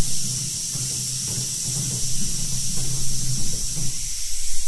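Wooden bilona churning stick spun back and forth by a rope in a pot of dairy, giving soft, uneven swishing strokes over a steady low hum. This is hand-churning, a step in making ghee.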